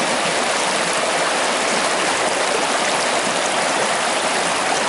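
River water rushing and burbling through a narrow channel between concrete blocks, making a steady splashing rush.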